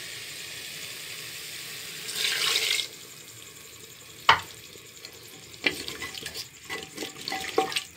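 Chicken karahi masala frying in a pot, a steady low sizzle. About two seconds in comes a short, louder burst of hissing as stock is poured in, then a sharp knock and a run of clicks and scrapes from a wooden spoon stirring the chicken in the liquid.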